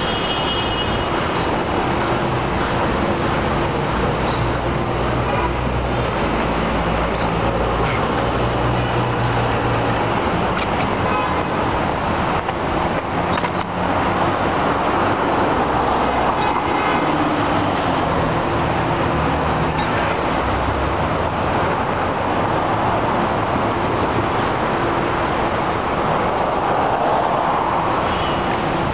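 City street traffic heard from a moving bicycle: cars and taxis running past, over a steady rush of road and wind noise. A low engine hum stands out for several seconds near the start.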